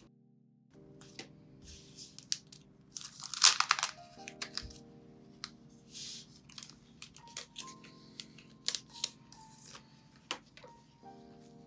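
Clear plastic binder pockets and sticker sheets crinkling and clicking as they are handled, with the loudest crinkle about three and a half seconds in. Soft lofi music plays underneath.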